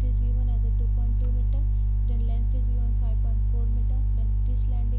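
Steady electrical mains hum with a stack of overtones, loud and unchanging, the hum that an earthing fault puts on a recording. Faint voices in the background come and go under it.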